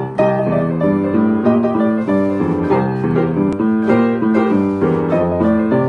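Acoustic upright piano played with both hands: a melody over chords, the notes changing several times a second.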